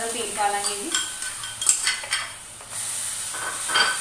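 Steel spoon scraping and knocking against a steel bowl and kadhai as onion, ginger and garlic masala paste is emptied into the hot pan, several sharp ringing clinks over a steady sizzle from the pan.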